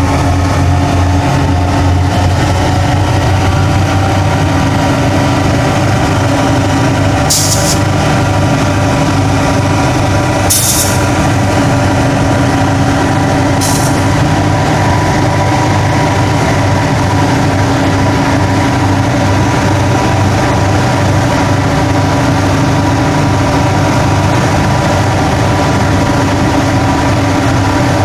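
EMD G26MC-2U diesel-electric locomotive's two-stroke diesel engine running steadily and loud, driving its air compressor to fill the air reservoirs. Three short hisses of released air come about seven, ten and thirteen seconds in.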